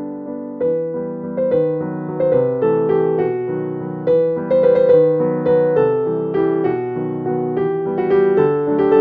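Background piano music: a steady flow of struck notes, each fading before the next.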